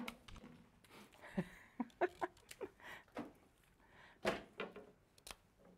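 Handling noise from flower stems being moved about in an arrangement on a table: a string of short knocks, clicks and rustles, the loudest knock a little past the middle.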